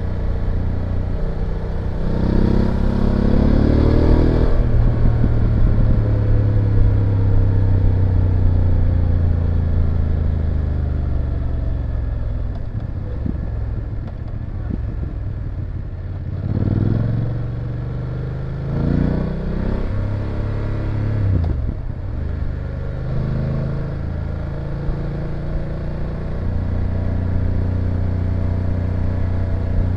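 BMW F850GS's parallel-twin engine and exhaust under way: the revs climb hard about two seconds in, then fall away slowly. Several short rises in revs follow in the middle, before it settles into a steady cruise.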